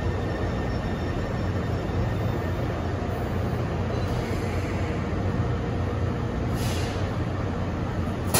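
Taipei Metro C301-type train running between stations, heard from inside the car: a steady rumble of wheels and running gear with a low hum. A short hiss comes about two-thirds of the way through.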